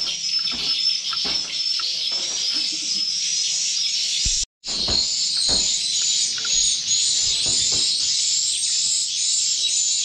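Dense, continuous high twittering of white-nest swiftlets filling the bird house, with a few low knocks. It breaks off for an instant about halfway through.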